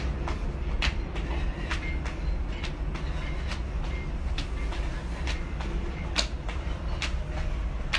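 Sneakered feet landing on a hard floor during jumping jacks, a light slap about twice a second, over a steady low rumble.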